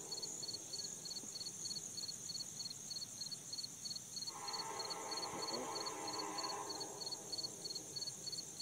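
A diesel locomotive's air horn sounds one long, steady blast in the distance, starting a little over four seconds in and lasting about two seconds. Behind it, insects chirp in a steady, rhythmic chorus.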